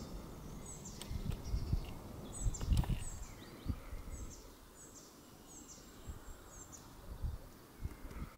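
A small bird repeating short, high chirps about once a second outdoors. Low rumbling thumps sit under it, loudest about three seconds in.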